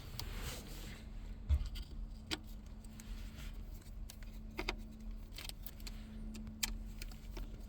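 Small metal clicks and clinks of a Phillips screwdriver and screws being worked on a radio's metal mounting brackets. There is a low thump about a second and a half in, and a sharper click near the end.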